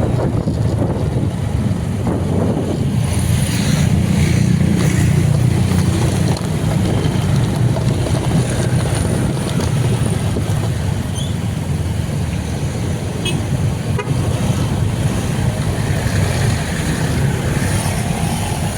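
Steady low rumble of road traffic and a moving vehicle, with wind buffeting the microphone.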